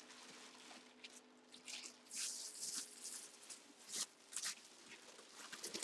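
Faint rustling and scraping as packaging is handled while a helmet is unboxed. The noise comes in short bursts, clustered about two seconds in and again around four seconds, over a low steady hum.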